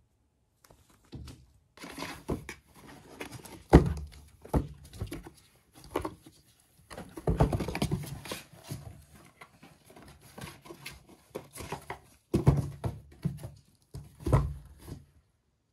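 Kittens playing on a cardboard box: their paws thud and scuff on the cardboard as they jump onto it, walk across it and scramble off, an uneven run of knocks and scratching with a few sharp loud thuds. It starts about a second in.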